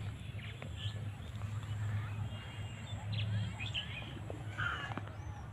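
Outdoor farm ambience: faint, scattered bird chirps and calls over a low, steady rumble.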